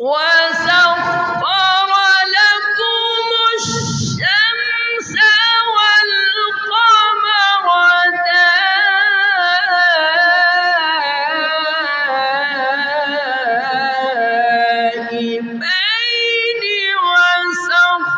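A man reciting the Qur'an into a microphone in slow, melodic tajweed. He sings long, ornamented phrases with held, wavering notes, broken by a quick breath about four seconds in.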